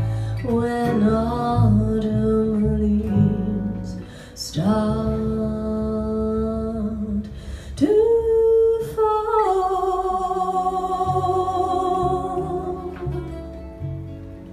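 A female jazz vocalist singing long held notes with vibrato, without clear words, over acoustic guitar and electric bass. The music fades off near the end as the song closes.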